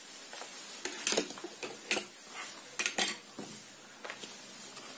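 Several light clicks and knocks of plastic measuring spoons against a glass mixing bowl and tabletop as they are handled and set down, mostly in the first three seconds.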